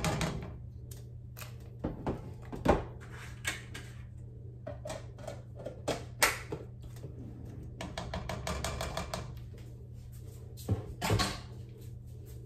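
A spoon clinking and knocking against a cooking pot as butter is scooped in and the pot is stirred, in scattered sharp taps, over a low steady hum.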